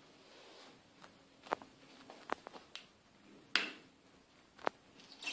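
A handful of sharp clicks and knocks at irregular intervals, the loudest about three and a half seconds in.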